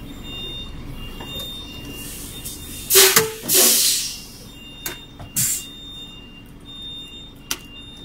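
Truck engine idling steadily; about three seconds in, two loud bursts of compressed-air hiss, followed by a few scattered knocks and clicks.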